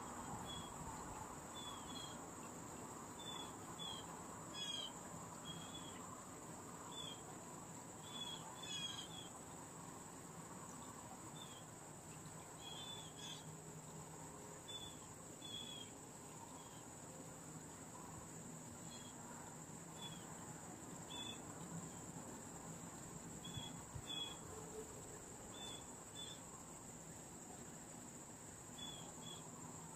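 A steady, high insect drone, like crickets calling, with short bird chips scattered irregularly throughout.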